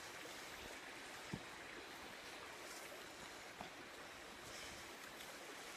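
Faint steady outdoor hiss, with a single short knock about a second and a half in.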